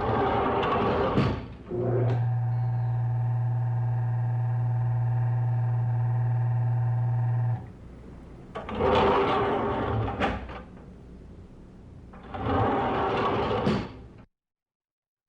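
Elevator sounds: sliding doors rumbling, then a steady low mechanical hum of the elevator for about five seconds that stops abruptly, then doors sliding twice more. Each sound comes as its own short burst.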